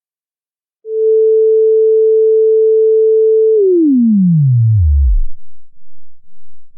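Pure sine-wave test tone from an online tone generator. It starts about a second in, holds a steady mid-range pitch, then slides smoothly down to a very low pitch over about two seconds.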